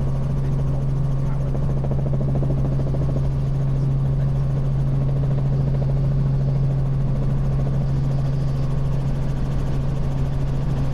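Robinson R44 Raven I helicopter in flight, heard from inside the cabin: a loud, steady drone of rotors and engine, dominated by one strong low hum that does not change.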